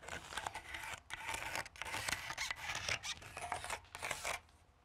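Pencil scratching along a spirit level on a Thermalite aerated-concrete block wall, in a rapid series of short strokes, as the lines for a pipe chase are marked out.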